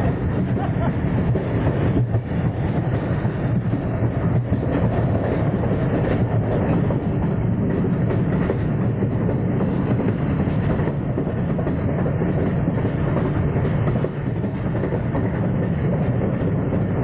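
Passenger train running along the track, heard from inside a carriage: a steady rumble of wheels on rails with a faint clatter.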